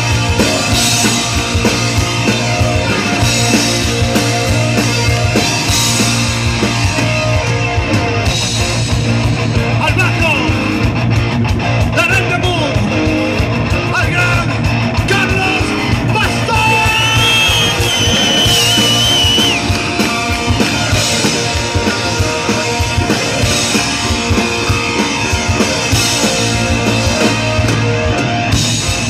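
Live rock band playing: electric guitars, bass guitar and a drum kit, with singing over them.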